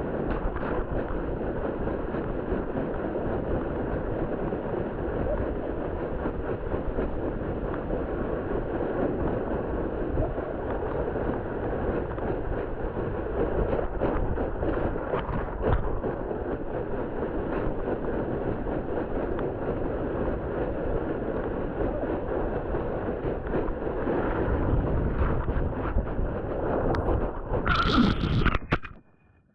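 Red plastic sled sliding over snow as a dog pulls it, a steady scraping rumble, with a brief louder rush near the end as the sled swings toward a snow bank.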